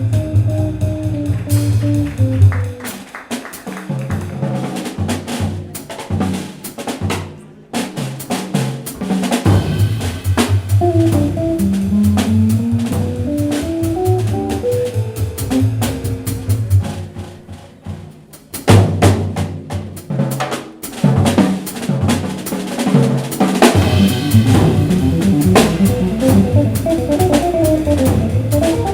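Instrumental jazz from a guitar, double bass and drum kit with no singing; the drum kit's snare, rimshots and bass drum are prominent over walking, stepwise lines, with a few brief drops in level.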